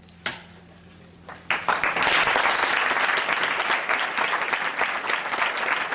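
Audience bursting into applause about a second and a half in, many hands clapping densely and steadily. A single sharp click comes shortly before.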